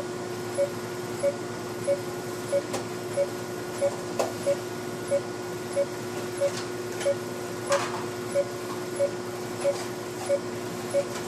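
Patient monitor beeping with each heartbeat: short beeps at one pitch, about three every two seconds, over a steady low hum, with a few faint clicks.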